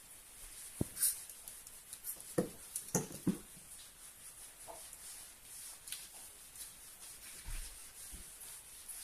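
A Chihuahua puppy moving about: scattered soft taps, knocks and rubbing, most of them in the first three or four seconds, over a faint steady hiss.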